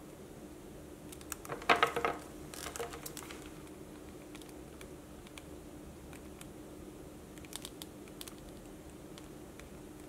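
Cartier Santos 100 belt's golden-finish metal buckle clicking and rattling as it is handled, with a burst of clicks about a second and a half in, a few more soon after, and light ticks later on.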